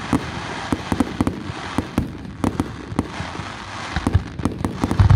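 Aerial fireworks display: a rapid string of sharp pops and crackles from bursting shells, with deeper booms about four and five seconds in.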